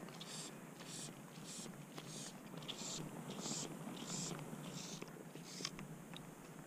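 Fly line being retrieved: soft, even hissing strokes, about one and a half a second, with a few faint clicks.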